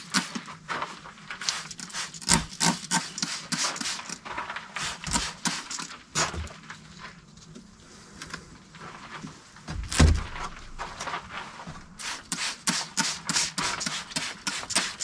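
Irregular scraping, rubbing and clicking from hands working on a propane forge's insulation blanket while it is pre-wetted, with one dull thump about ten seconds in.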